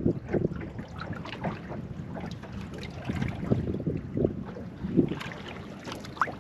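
Wind buffeting the microphone on a small boat, with water slapping against the hull in irregular knocks and splashes.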